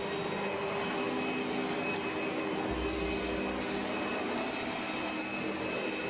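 Sirena water-filtration canister vacuum cleaner running with its power nozzle on a hardwood floor: a steady motor drone with a high whine. A brief low rumble comes about three seconds in.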